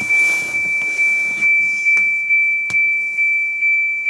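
Electronic warning beeper sounding a continuous high tone that pulses about twice a second, with a single click about two-thirds of the way through.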